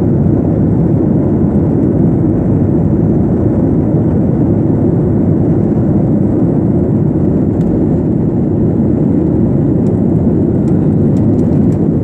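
Steady low rumble of a jet airliner's engines and its rolling along the ground, heard from inside the passenger cabin.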